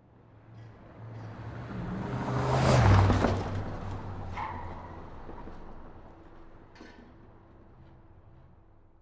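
A motor vehicle passing by: engine hum and road noise growing louder, peaking about three seconds in with a drop in pitch, then fading away.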